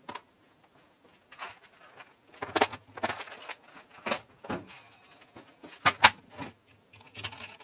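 Irregular knocks and clatters of small parts and plastic parts boxes being handled on a workbench, the loudest a close pair of knocks about six seconds in.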